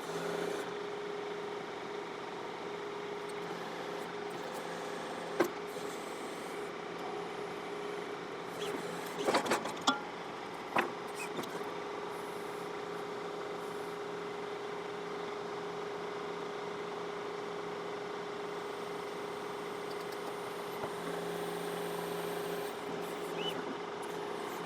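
John Deere 4052R tractor's diesel engine running at a steady speed while working the backhoe, with a steady hum throughout. A few sharp knocks come about five seconds in and again around nine to eleven seconds in.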